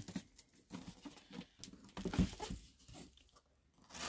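Cardboard collectibles box being handled and its lid worked open by hand: scattered soft knocks and scrapes, the loudest about two seconds in.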